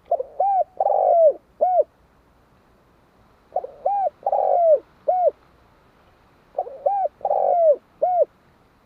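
Spotted dove cooing: three phrases about three seconds apart. Each phrase is a couple of short coos, then a longer drawn-out coo, then a final short coo.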